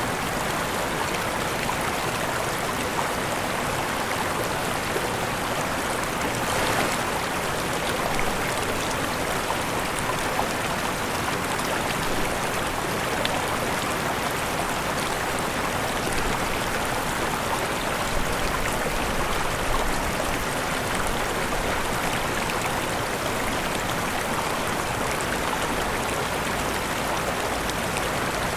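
Waterfall: falling water rushing steadily, an even unbroken hiss-like rush with a brief slight swell about seven seconds in.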